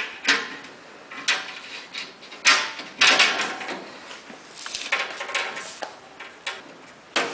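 Metal trim ring knocking and scraping against the fiberglass trough and its mounting bolts as it is worked into place by hand: a string of irregular sharp knocks with short scrapes between them.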